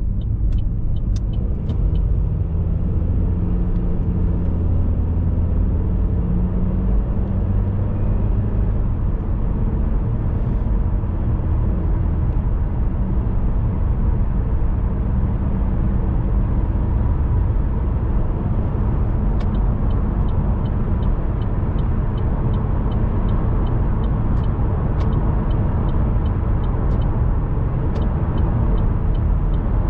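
Steady road and engine noise of a car driving: a low rumble with tyre hiss. Evenly spaced short ticks join in about two-thirds of the way through.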